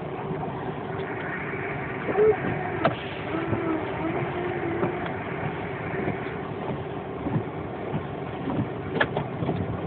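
Car driving along a road, heard from inside the cabin: a steady mix of engine and road noise, with a few short knocks.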